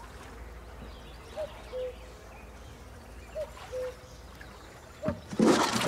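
Rowboat's oarlocks squeaking in time with the oar strokes: a pair of short squeaks about every two seconds over a low steady rumble. Louder rowing noise comes in near the end.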